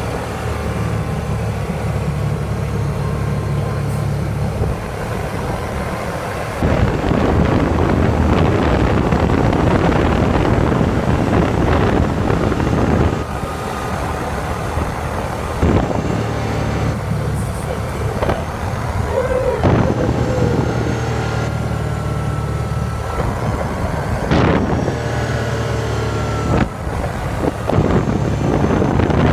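A motor vehicle driving along a paved road: a steady low engine hum under wind and tyre rush. The rushing noise swells about six seconds in and again at times later, partly covering the hum.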